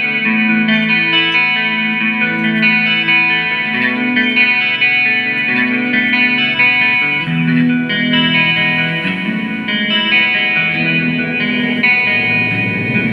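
Instrumental music led by a guitar, playing sustained chords whose notes change every half second or so.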